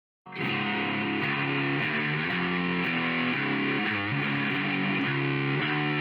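Background music starting abruptly a quarter second in: distorted electric guitar with a steady beat.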